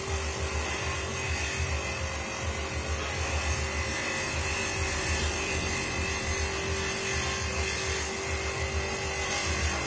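Electric coconut grater running steadily: its small electric motor hums while coconut flesh is pressed against the spinning toothed grating drum, giving a steady grinding buzz that sounds like a drill.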